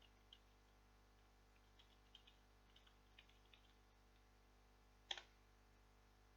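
Faint computer keyboard typing, a quick run of light key clicks, followed by a single louder click about five seconds in.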